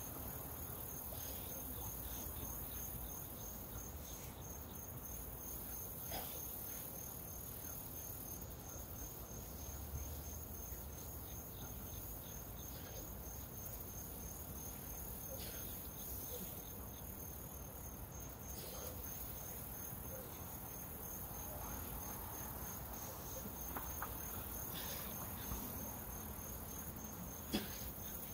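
Insects chirping in a steady, unbroken high-pitched pulsing trill, with a few faint clicks scattered through it.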